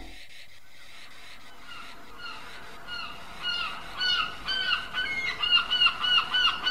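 Birds calling over and over, short arched calls a few each second, faint at first and growing louder from about halfway through.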